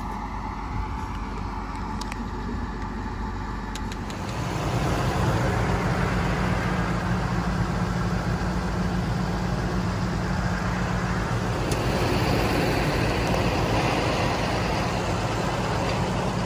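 A motor vehicle's engine running close by. About four seconds in it picks up to a louder, higher-revving run and holds there.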